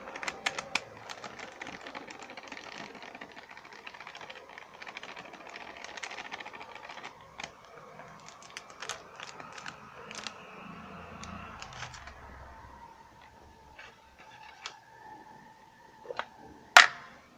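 Light, irregular clicking and rustling as corn flour is added to cut potato pieces, with one sharp click near the end.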